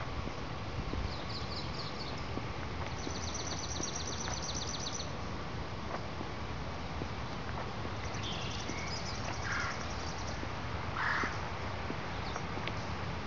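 Outdoor birdsong: a bird repeats a rapid high trill several times, and two short lower calls come about two thirds of the way through, over a steady low background rumble.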